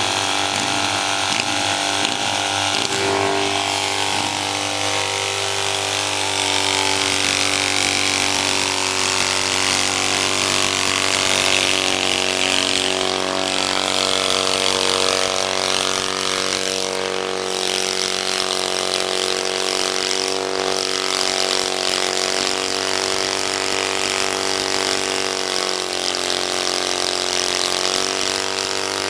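Vintage British bobber motorcycle's engine held steadily at high revs while its rear tyre spins against the pavement in a smoking burnout, with a strong hiss of tyre scrub over the engine.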